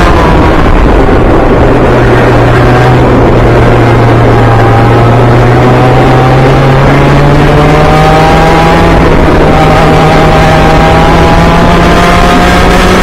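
Kart engine running hard on track, heard from inside the driver's helmet over rushing wind: its pitch drops near the start, stays low for a few seconds through a corner, then climbs steadily from about halfway as the kart accelerates.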